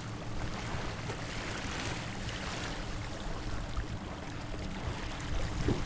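Wind buffeting the microphone over the steady splash and rush of choppy water along the hull of a Martin 16 sailboat under way.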